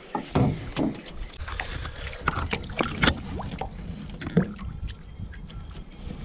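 Scattered knocks and handling noises in an aluminum fishing boat over a low wind rumble on the microphone. Near the end there is light splashing as a smallmouth bass is lowered into the water by hand and released.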